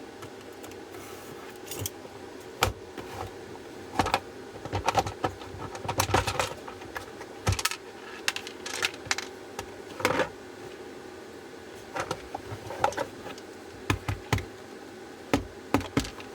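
Irregular clicks, taps and short scrapes of hand work on a plastic battery-pack case, with a knife slicing through the sticker over the case's screws.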